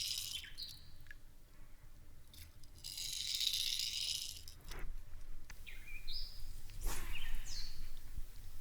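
Rapala jerkbait being worked in the water, its rattle giving two soft, hissy shakes about three seconds apart. Short high chirps and a few faint clicks come in near the end. It is the quietest of the jerkbaits compared.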